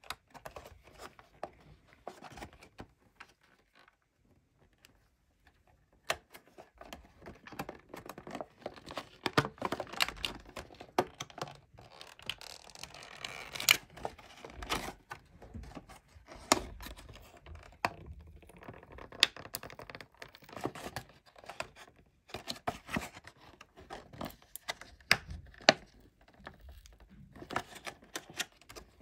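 Clear plastic blister packaging and its card backing handled and pried open by hand: irregular crinkling, scraping and sharp clicks of the plastic, after a few near-quiet seconds near the start.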